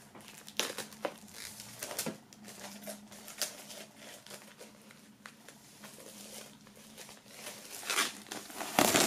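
Plastic shrink-wrap being peeled off a vinyl record's gatefold sleeve: irregular crinkling and crackling of the film, loudest near the end.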